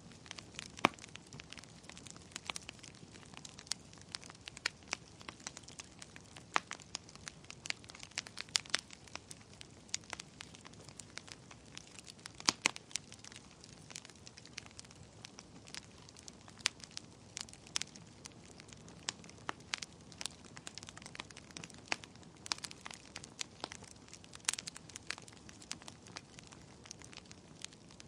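Fire burning in a fireplace, crackling with irregular sharp pops, several a second, over a soft steady hiss.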